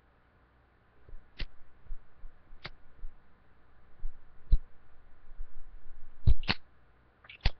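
Zippo lighter being handled: a series of sharp metallic clicks at uneven intervals, over low rustling handling noise.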